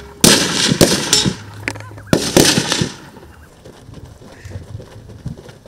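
Rifle shots on a firing range: a few sharp cracks in the first two seconds or so, each followed by a long rolling echo, then the sound dies down to a much quieter background.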